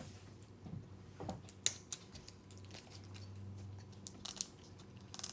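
Toy packaging being opened by hand: faint scattered rustles and small clicks, with one sharper click about a second and a half in.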